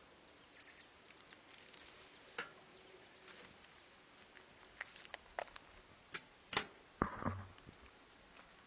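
Handling noise from a hand gripping a 360 camera on a hand-held pole: scattered faint clicks and rubs, with a few sharper clicks and a brief low bump about six and a half to seven seconds in.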